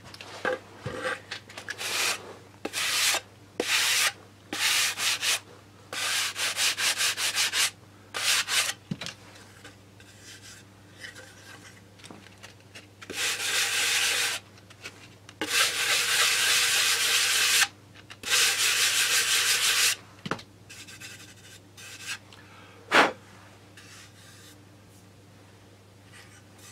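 Hand sanding a balsa-wood tail fin with a sandpaper block, smoothing filler over a small hole: groups of quick back-and-forth strokes, then a few longer passes that stop about twenty seconds in, followed by a couple of sharp knocks.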